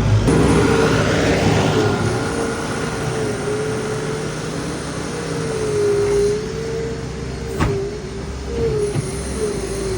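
Skid steer loader's diesel engine running under load while moving soil, its pitch wavering up and down as the throttle and hydraulics are worked. A single sharp knock about three-quarters of the way through.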